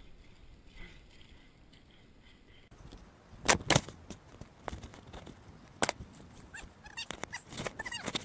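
Footsteps crunching through dry leaves and brush, with sharp knocks and rubbing of a handheld camera, on a steep climb. It starts about three seconds in as irregular clicks and cracks, two loud ones close together, then a busier run of clicks near the end.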